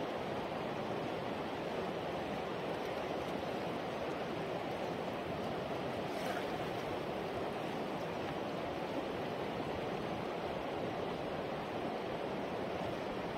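Steady rush of river water flowing and rippling.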